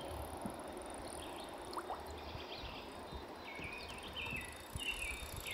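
Lake water lapping and trickling quietly around a small boat, with a run of short high chirps repeating from about two and a half seconds in.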